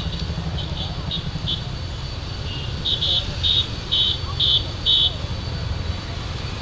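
Jet engines of a taxiing Cathay Pacific Cargo Boeing 747 freighter giving a steady low rumble. Over it, from about halfway through, comes a run of short high chirps about two a second, the loudest sound.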